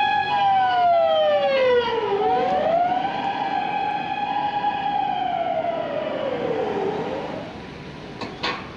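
Emergency vehicle siren wailing, its pitch climbing, holding and then sinking in two long slow cycles before it fades. Two short clicks near the end.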